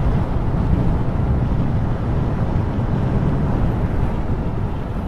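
Steady low rumble of a car driving along a road, with wind buffeting the microphone.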